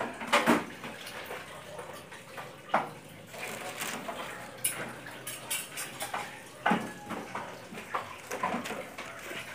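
Clothes being loaded into a top-loading washing machine: cloth rustling with irregular knocks and clatters against the plastic tub and lid, louder knocks near the start, about three seconds in, and near seven seconds in.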